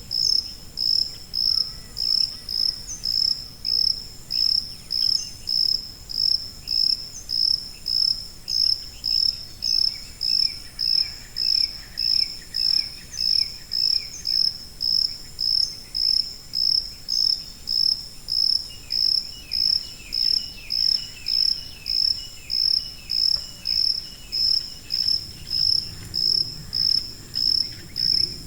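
A cricket chirping steadily. Its high-pitched chirps come at an even pace of about three every two seconds.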